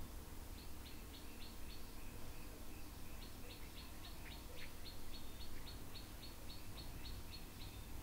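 A small bird chirping repeatedly in the background, short high notes at about three a second, in a few spaced bursts and then a longer run, over a faint steady low hum.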